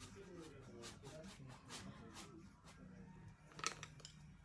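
Faint scratching of a paintbrush stroking and dabbing paint on a canvas, a short stroke every fraction of a second, with one sharp click about three and a half seconds in.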